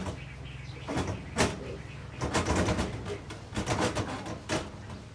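Pigs in a pen, the piglets jostling around the sow and letting out a run of short squeals and grunts in several clusters, over a steady low drone.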